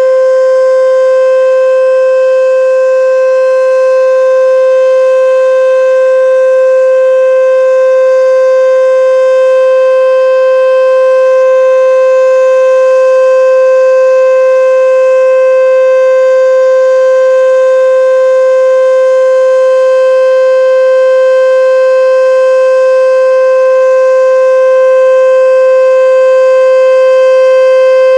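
H.O.R Super Sirex civil defense siren sounding its full alert signal: one loud, steady single tone with rich overtones, holding the same pitch throughout.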